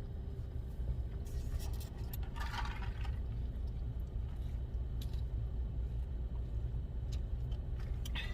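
Steady low rumble inside a car cabin, with a few small clicks and a brief scraping rustle about two and a half seconds in.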